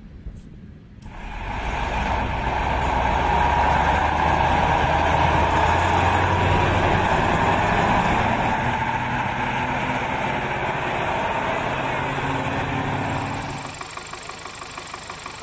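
Ural 6×6 military cargo truck's engine running loud and steady as the truck drives on a dirt road. Near the end it drops to a quieter idle with a regular light ticking.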